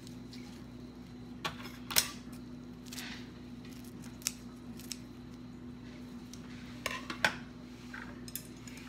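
Kitchen scissors snipping through fresh Vietnamese coriander leaves: about ten short, sharp snips at irregular intervals. A steady low hum runs underneath.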